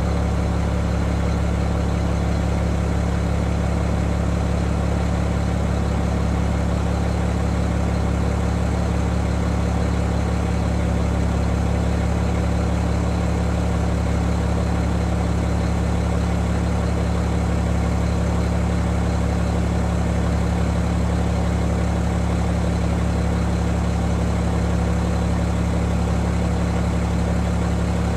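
Fire engine idling steadily at the scene, a low even engine drone that does not change.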